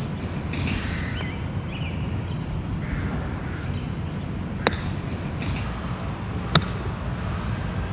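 Two sharp cracks of a golf club striking a ball, about two seconds apart, over a steady outdoor background with faint bird chirps.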